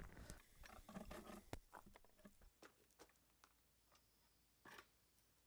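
Near silence with a few faint scuffs and knocks, fading out over the first two seconds, and one brief louder scuff near the end.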